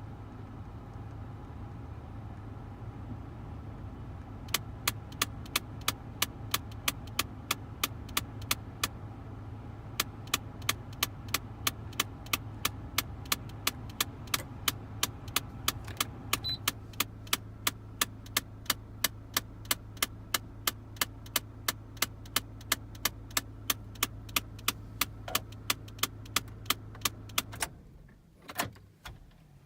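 Broken heater/cooling flap actuator in a 2001 Mitsubishi Galant's climate control clicking sharply and evenly, about three times a second, over a steady hum. The clicking pauses for about a second partway through, then carries on. Near the end the hum and clicking stop, followed by a couple of small knocks.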